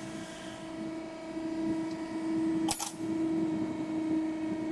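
Automatic soft plastic lure injection molding machine running with a steady, even hum. A short burst of hissing noise comes a little after halfway.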